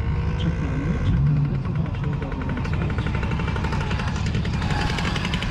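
A car engine running nearby, a steady low rumble, with a rapid even ticking joining in about three seconds in.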